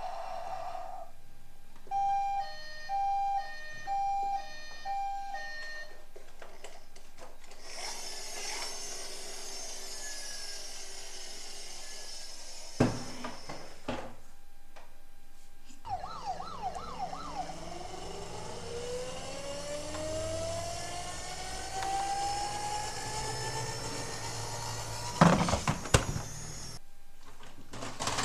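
Electronic toy emergency-vehicle sirens: a two-tone hi-lo siren alternating for a few seconds, a high hissing stretch, then a few fast yelps and a long slowly rising wail. Sharp plastic knocks come about thirteen seconds in and again near the end.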